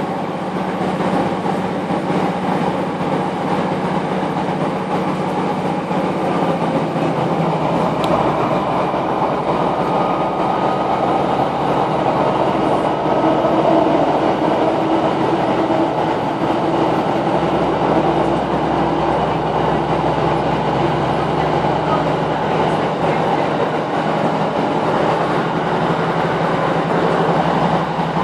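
Class 156 Sprinter diesel multiple unit under way, heard from inside the carriage: a steady underfloor Cummins diesel drone over wheel and rail noise. The engine note shifts about a quarter of the way in.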